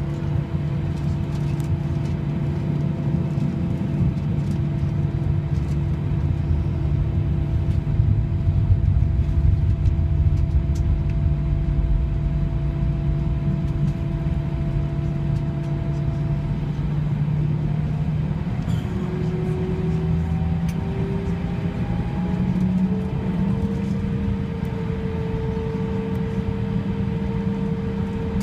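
Airbus A319 jet engines heard from inside the cabin while taxiing: a steady whine over a low rumble. About two-thirds of the way through, the whine rises in pitch over several seconds and holds higher as engine thrust is increased.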